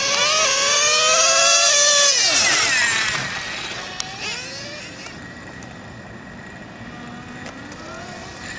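Nitro RC car's small two-stroke glow engine at full throttle on a drag pass: a high-pitched note that climbs in pitch for about two seconds, then falls and fades by about three seconds in. After that only a faint steady background remains, with a sharp click about four seconds in.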